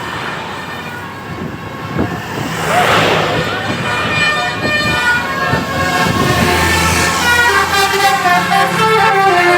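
A bus's Basuri telolet horn playing a tune, with a series of held notes stepping up and down in pitch, starting about four seconds in and growing louder. The bus's engine runs underneath.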